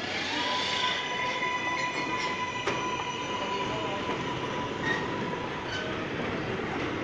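R188 subway train pulling out and accelerating away: its motors whine, climbing in pitch at first and then holding a steady high note, over the rumble of wheels on rail. There is a sharp click about two and a half seconds in.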